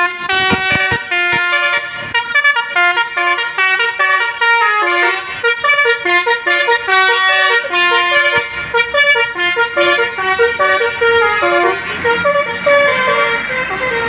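Telolet horn, a bus's multi-trumpet melody horn, playing a fast tune of stepping notes on a Sumber Jaya Jetbus 3 coach. It is loud and clear, and the bus's engine can be heard under it as the coach drives off in the second half.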